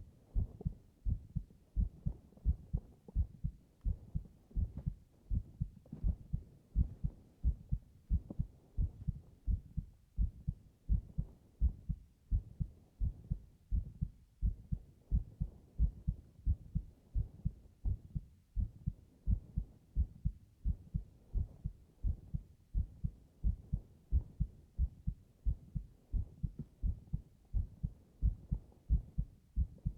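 A person's heartbeat heard close up: a steady, slow lub-dub, each beat a pair of low thumps.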